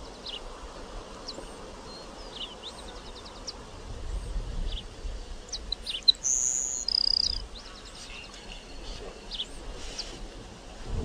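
Grassland sparrow singing: thin, high, short notes and quick insect-like series of notes, with two held high whistles about six to seven seconds in.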